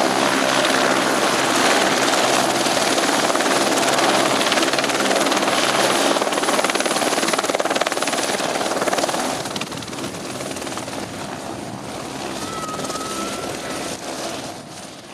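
Eurocopter AS350 Écureuil single-turbine helicopter hovering and touching down: steady rotor noise with a high, steady turbine whine. About nine seconds in, once it sits on the pad, the sound drops noticeably and runs on quieter with the rotor still turning.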